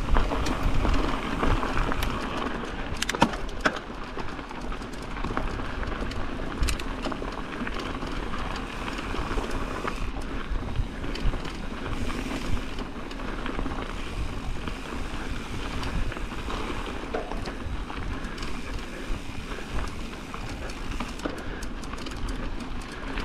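Mountain bike rolling along a dirt trail: steady tyre noise on the dirt and wind rumble on the microphone, with occasional sharp clicks and rattles.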